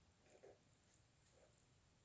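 Near silence: room tone with two faint, short soft taps, about half a second and a second and a half in.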